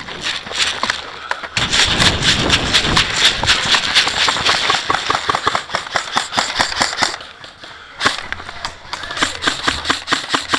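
Rapid clattering and cracking, with the rumble of movement, picked up by a camera mounted on an airsoft rifle as the player runs. The cracks come thick and fast from about a second and a half in, thin out near the two-thirds mark, and pick up again near the end.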